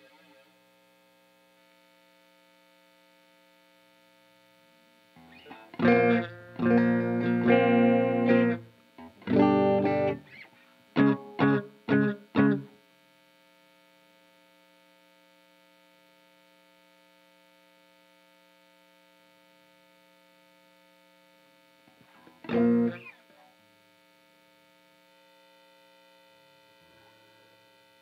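Electric guitar, a 1967 Fender Coronado II, played through an Old Blood Noise Endeavors Visitor parallel modulation pedal into a Strymon Iridium. A few seconds in it plays a burst of strummed chords, then four short stabbed chords, and one more brief chord later on. A faint steady hum sits between the chords.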